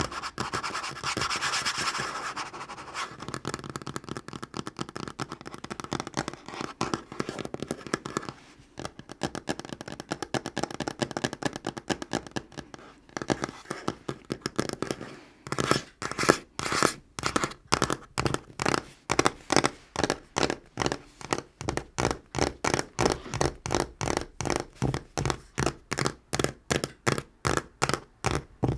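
Natural fingernails scratching and tapping fast on a tabletop, dense and scratchy at first. From about halfway it turns into even, separate taps at roughly three a second, which stop just before the end.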